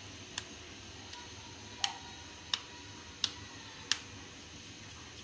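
A soft dough ball pressed and rounded between oiled palms, giving five sharp wet clicks, the last four at an even beat a little faster than one a second.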